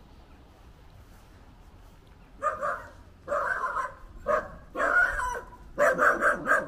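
A dog barking: a series of short barks starting about two seconds in, ending with a quick run of three.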